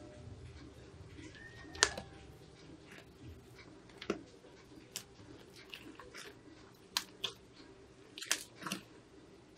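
Thick green slime squeezed and kneaded by hand, giving a scattering of sharp sticky clicks and pops, loudest a little under two seconds in and again near the end.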